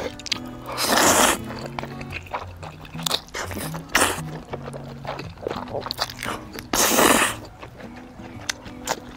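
A person eating jjajang instant noodles, chewing with small clicks and with two louder, half-second rushes of noise about a second in and around seven seconds, over background music with a steady bass line.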